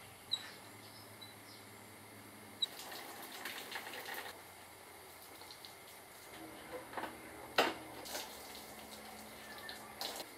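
Water splashing and sloshing as a scooter is washed by hand, in irregular spells. There are a few sharp knocks among the splashes, the loudest about seven and a half seconds in.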